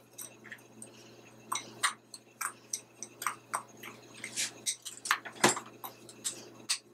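Metal spoon mashing coconut oil into a gritty baking-soda and ground-rice mixture in a glass bowl: irregular scrapes and crunches with light clinks of the spoon against the glass.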